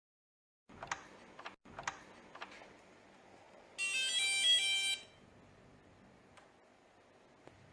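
A few clicks and knocks, then a micro:bit door alarm sets off a short electronic jingle of quickly changing beeps lasting about a second: the alert it plays when its sensor detects someone moving through the door.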